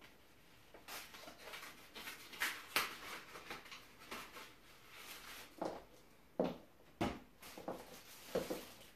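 Paper-and-plastic packaging of a pantyhose pack rustling and crinkling as it is opened. In the second half come several separate knocks, high-heel steps on a hard floor, one sharper just after halfway.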